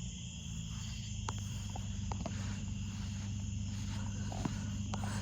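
Steady high insect chirring with a low steady hum beneath it and a few scattered light clicks.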